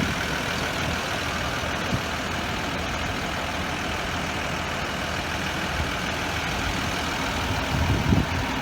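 A large vehicle's engine idling steadily in the open, with an even background noise. A short low sound rises briefly near the end.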